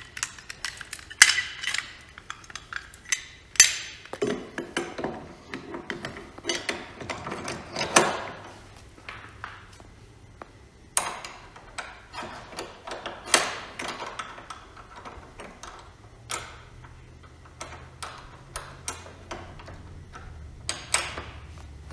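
Irregular metallic clinks, clicks and knocks of workbench caster hardware and hand tools being handled, with a few sharper knocks.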